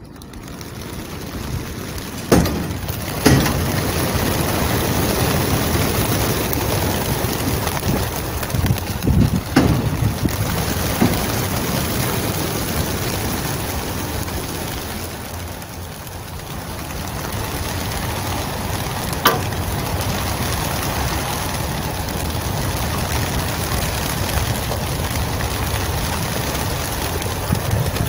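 A large flock of racing pigeons taking off together from a transport trailer: a dense, rushing clatter of wingbeats, with a few sharp knocks. It thins out about halfway through, then swells again.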